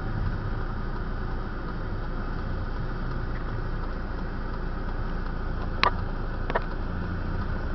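Steady low engine and road rumble of slow-moving traffic, with two short sharp clicks about two-thirds of the way through.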